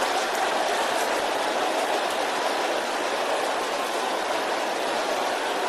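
A congregation praying aloud all at once, many voices merging into a steady, unbroken roar with no single voice standing out.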